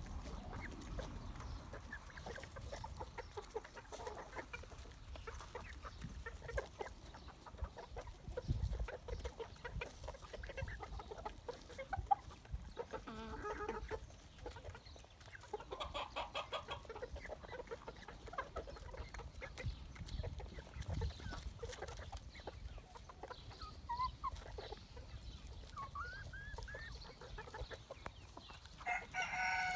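A flock of silver Appenzeller Spitzhauben chickens clucking softly on and off as they forage, with scattered short calls throughout and a louder, longer call right at the end.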